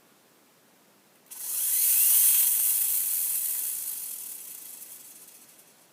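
Beyblade winder whirring as it winds Draciel G's engine gear: a sudden high whir about a second in that fades away over about four seconds.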